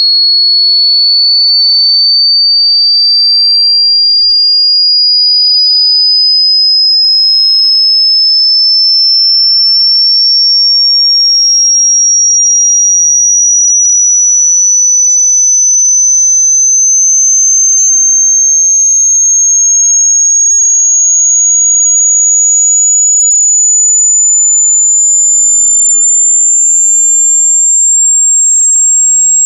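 Loud, pure, high-pitched electronic tone sweeping slowly and steadily upward in pitch: a speaker-cleaner water-eject sine tone, meant to vibrate water and dust out of a phone speaker.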